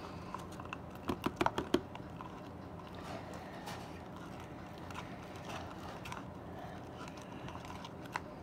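Light clicking and tapping of a stirring utensil against a plastic cup while glue and borax solution are mixed into slime: a quick run of sharp clicks about a second in, then scattered softer taps.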